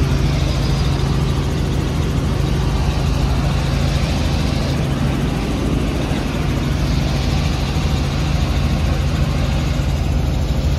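Robinson R44 helicopter's piston engine and rotors running steadily in cruise, heard from inside the cabin as a loud, even drone with a low hum.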